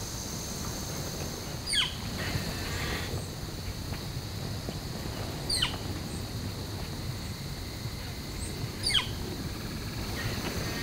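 A songbird gives a short whistle that slides sharply downward, three times a few seconds apart, over a steady high-pitched insect drone.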